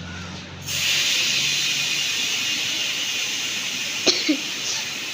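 Air hissing steadily out of a bicycle tyre's inner tube through its valve as the tyre is deflated, starting just under a second in, with two small clicks near the end.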